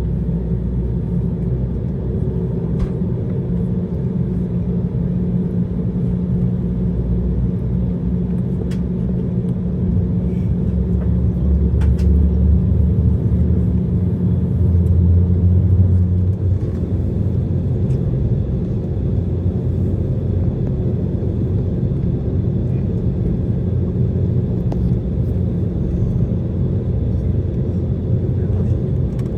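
Cabin noise inside an Embraer 190 jet: a steady low rumble of the engines and airframe, swelling a little in the middle, with a few faint clicks.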